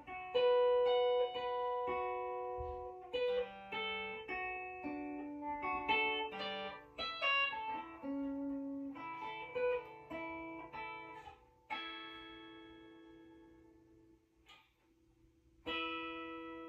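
Guitar played through a Peavey Standard Mark III amplifier: a run of single plucked notes, then a chord about twelve seconds in that is left to ring out, and one more note near the end.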